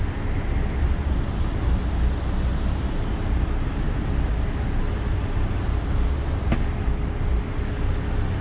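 Kawasaki Ninja 300 parallel-twin motorcycle running on the road in traffic, heard as a steady low rumble with road and wind noise.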